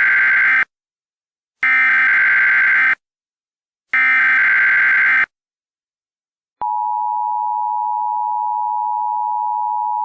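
Emergency Alert System tones: three bursts of SAME digital header data, each a little over a second long, with short gaps between. About six and a half seconds in, the steady two-tone EAS attention signal starts, announcing an alert message.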